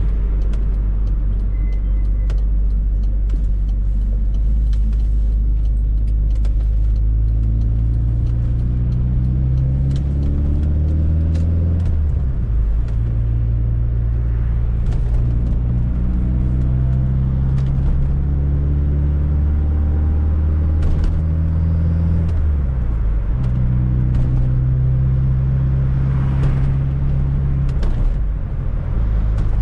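Fiat Coupé 16V Turbo's turbocharged four-cylinder engine pulling through the gears. The revs climb, drop at a gear change about twelve seconds in, climb again, and drop at another change near twenty-two seconds. Short clicks of rattling interior trim run throughout.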